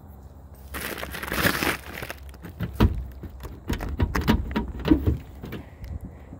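Dry pine needles and debris crunching and rustling as they are handled on an old car's body, followed by a run of sharp clicks and knocks as the car's door handle is worked.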